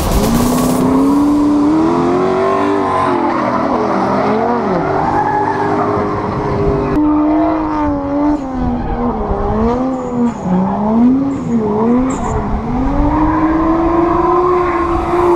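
Drift car engines revving up and down again and again as they slide through the corners, with tyre squeal underneath. The engine note jumps at an edit about seven seconds in.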